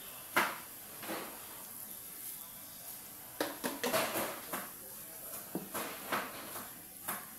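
A spoon knocking and scraping against the rim and sides of a large stew pot while the stew is seasoned and stirred. There is a sharp knock about half a second in, a quick cluster of knocks around four seconds, and a few more later.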